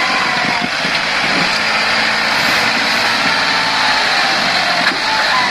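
John Deere tractor's diesel engine running steadily as it hauls a loaded trailer through deep mud.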